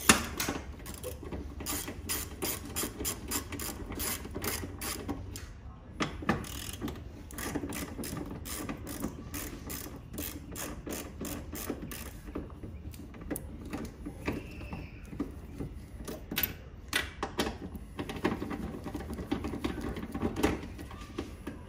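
Hand ratchet with a 10 mm socket on an extension clicking rapidly in runs as bolts are spun out. The runs are broken by short pauses between bolts.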